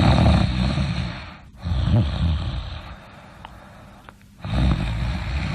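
Someone snoring: three loud, rattling snores, each about a second long, separated by quieter gaps, the last starting near the end.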